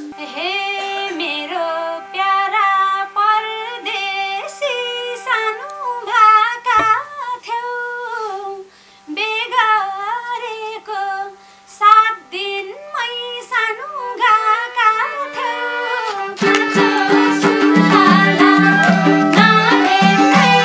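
Live Nepali dohori music between verses: a single ornamented solo melody with quick bends and runs over a faint held drone. About four seconds before the end the full band comes in with a steady beat.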